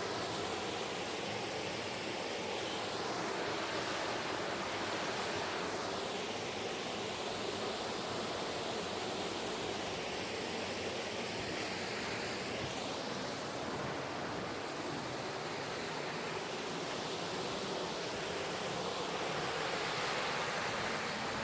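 A mountain stream's water rushing over rocks: a steady, even noise with slow swells.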